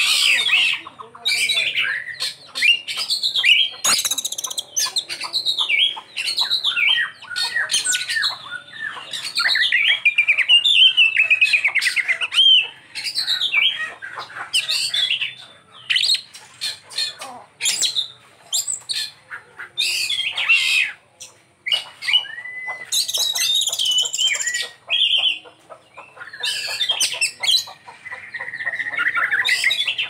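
Oriental magpie-robin (kacer) singing a long, varied song of whistles, fast runs of notes and rasping calls, broken by short pauses, rich in mimicked phrases of other birds.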